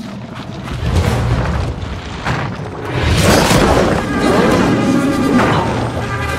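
Film soundtrack: dramatic music with heavy low booms and crashes from a fight scene with a dragon. The music's sustained tones come forward in the second half.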